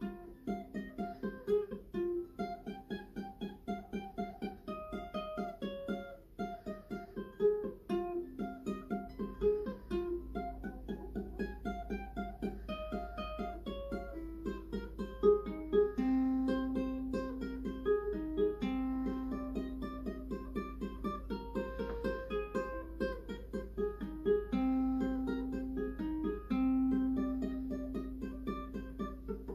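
Ukulele being fingerpicked: a quick, even run of single plucked notes, with some longer held notes from about halfway through.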